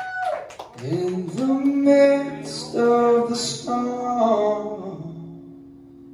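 Live acoustic band music: acoustic guitars and an electric bass playing the slow opening chords of a song, with singing; the last chord rings out and fades near the end.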